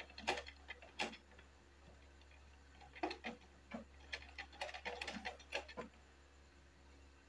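Faint, scattered clicks and rustles of cotton fabric being pinched and folded into small pleats by hand at a sewing machine, with a couple near the start and a denser run from about three to six seconds in.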